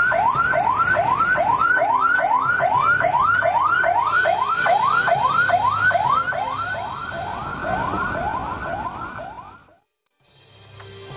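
Ambulance siren in rapid yelp mode: a fast rising tone repeating about three times a second, fading out near the end.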